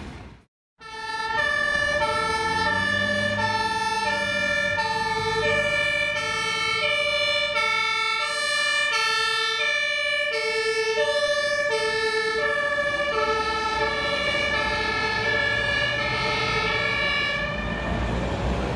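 Two-tone German emergency siren (Martinshorn) on a Mercedes-Benz ambulance, switching steadily between a low and a high note about every 0.6 s, over the ambulance's engine and road noise. It starts about a second in after a brief silent gap, and fades out near the end as traffic noise takes over.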